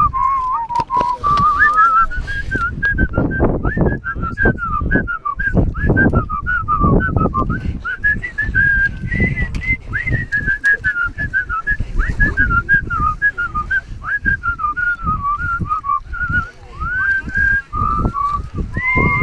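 A person whistling a wavering melody, over a low rumbling noise.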